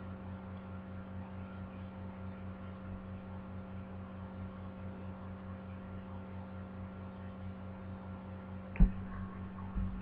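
Steady electrical hum picked up by a computer microphone, with one sharp click about nine seconds in and a softer knock just before the end.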